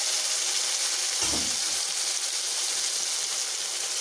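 Bhola fish pieces frying in hot oil in an aluminium kadai: a steady sizzle, with a brief low thump about a second in.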